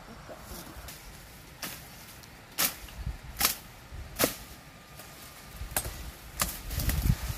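A series of sharp knocks or cracks, several of them at irregular intervals, over a low rumble that grows louder near the end.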